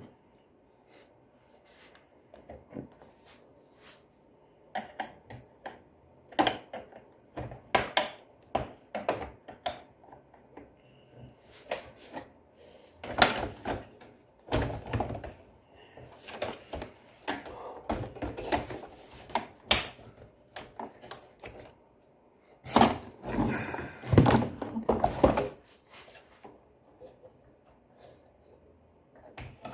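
Irregular knocks, clicks and thunks of a vacuum cleaner's casing and parts being handled during repair, with two longer, denser stretches of handling noise, one a little before halfway and one near the end. No motor runs.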